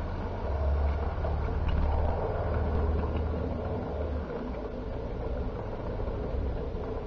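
Electric O gauge model train running along the track: a steady rumble of wheels on rail and motor hum, heavier over the first half.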